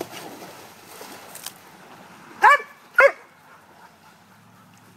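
Water splashing in a swimming pool, then a dog barks twice, about half a second apart, some two and a half seconds in.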